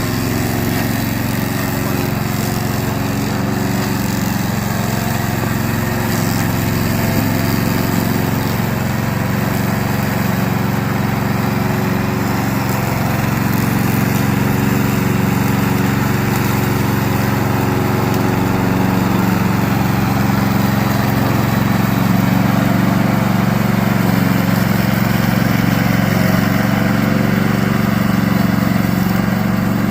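Gasoline engine of a remote-control lawn mower running steadily, getting a little louder past the middle.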